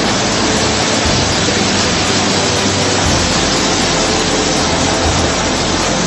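Muddy floodwater rushing in a fast torrent, a loud steady noise of churning water.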